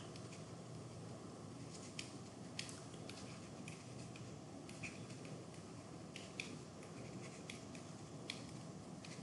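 Irregular light clicks and taps of a pen stylus on a tablet as words are handwritten, over a steady low hiss.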